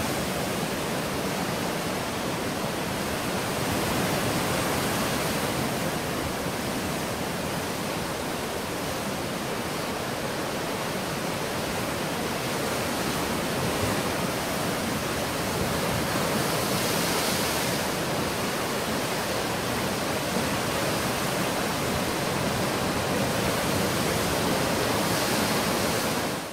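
Ocean surf breaking over dark rocks in a rocky cove: a steady rush of waves and foaming water that swells a little now and then, cutting off suddenly at the end.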